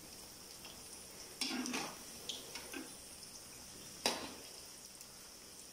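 Plantain flower vadais frying in oil with a steady sizzle, while a metal spatula scrapes and clicks against the pan as they are turned. A sharp knock of the spatula on the pan about four seconds in is the loudest sound.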